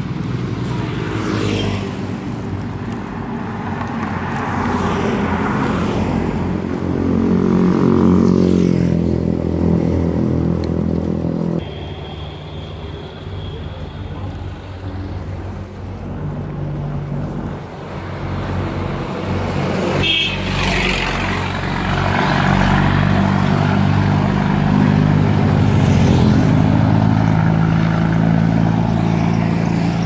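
Motor vehicle engines running on a road, with a steady engine drone that changes pitch abruptly twice and vehicles passing by.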